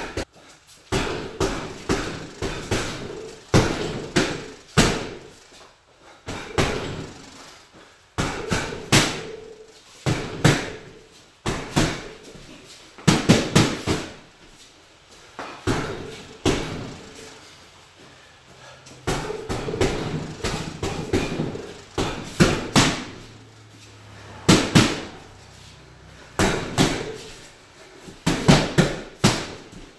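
Gloved punches smacking into a 3-in-1 wall-mounted heavy bag, in quick combinations of several hits with short pauses between them.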